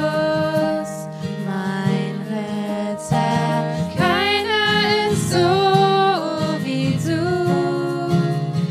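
Christian worship song: a voice singing long held notes over instrumental backing.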